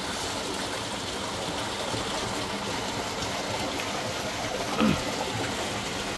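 Water gushing steadily from a motor pump's outlet pipe into a tank beside the pond, the pump motor itself silent; a brief louder sound comes about five seconds in.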